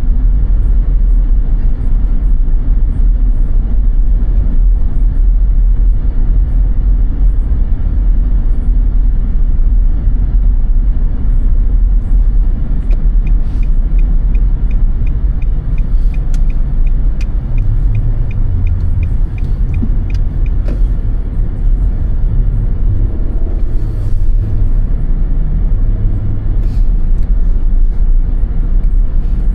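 A car driving on a snowy road, heard from inside the cabin as a steady low rumble of engine and road noise. In the middle, for about eight seconds, there is a fast, regular ticking of about two to three ticks a second.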